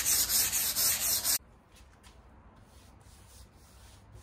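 Hand-sanding primer on a faux-wood furniture top with 220-grit sandpaper: quick back-and-forth rubbing strokes, about four a second, a light sanding to knock off hairs and bumps. The sanding cuts off suddenly about a second and a half in, leaving only faint brushing of a paintbrush on the surface.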